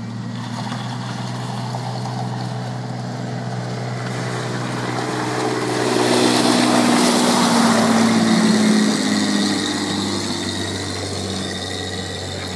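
Engine of an amphibious Duck Tours DUKW as it drives out of the water and up a slipway. Its note rises and grows louder as it climbs past close by, about halfway through, then falls away.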